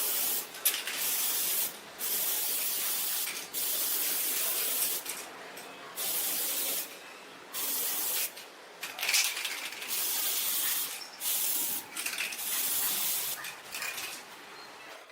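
Spray hiss in repeated bursts, each about a second long with short pauses between, as a coating or cleaner is sprayed onto stove parts.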